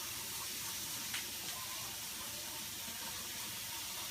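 A steady, even hiss from chicken being cooked in a kitchen, with a light click about a second in.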